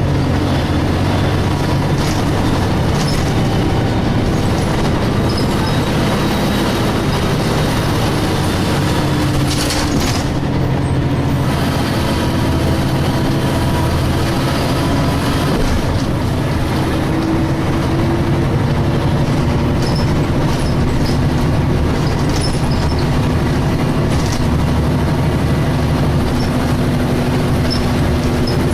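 DAF SB220 single-deck bus's diesel engine running under way, heard from inside the bus over a steady road and body rumble, with a brief dip in the sound about ten seconds in.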